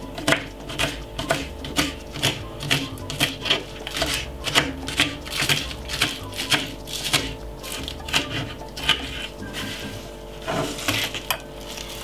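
Knife slicing spring onion on a wooden cutting board: a steady run of quick taps, about three a second, thinning out after about nine seconds.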